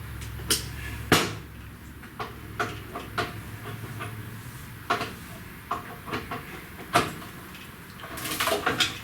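Hand tools clinking and knocking against metal parts while a stuck fastener is worked loose: separate sharp clanks a second or two apart, with a quick run of clinks near the end.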